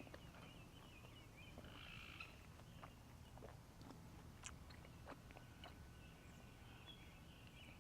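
Near silence: a few faint clicks from a person chewing a tough, dry mouthful, with faint distant animal calls outdoors.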